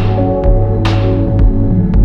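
Background ambient music: sustained low notes under a bright percussive hit that rings out and fades, about once a second, with lighter ticks between.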